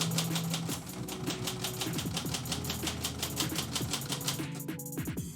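Typewriter keys struck in a fast, steady run of about five clicks a second, stopping shortly before the end, over background music.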